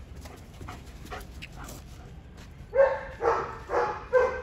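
German Shepherd dog barking four times in quick succession, about two barks a second, starting about three seconds in.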